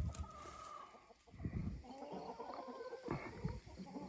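A flock of hens clucking quietly, with short, wavering calls from about halfway through.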